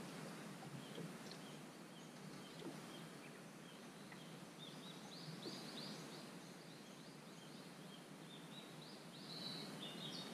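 Faint outdoor ambience with a bird singing: quick runs of short, high chirps about halfway through and again near the end.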